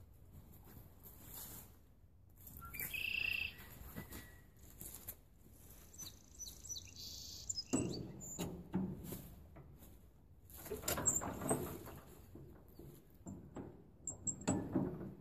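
Allis-Chalmers 20-35 tractor engine being hand-cranked at the front without catching: irregular bursts of turning-over effort from about eight seconds in. A few bird chirps come earlier.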